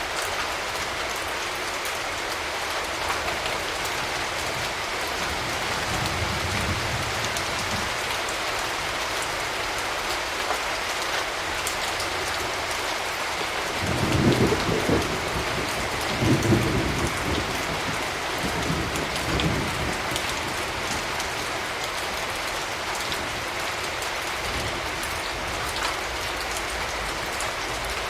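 Steady rain falling, with thunder rumbling faintly once and then in several louder low rolls about halfway through.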